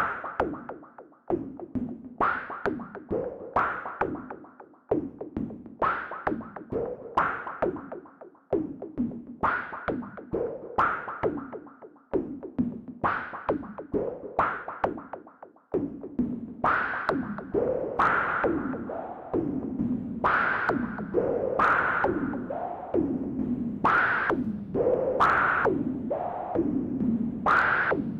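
Modular synthesizer playing sequenced, drum-like percussion from filtered noise: a noise source through a Wasp filter and VCA with delay. Rhythmic hits each sweep down in pitch, and the pattern grows denser and fuller about halfway through.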